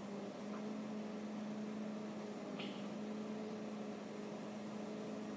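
Steady low electrical hum, with a single faint tick about two and a half seconds in.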